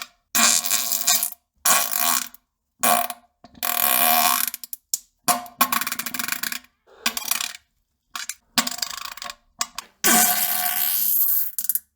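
A run of fart and poop sounds: about ten separate bursts with silent gaps between them, the longest near the end.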